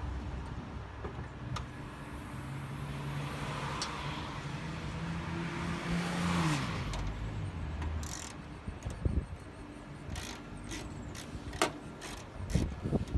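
A motor vehicle engine running steadily, its pitch falling away about six and a half seconds in. Several sharp knocks and clicks follow, the loudest near the end.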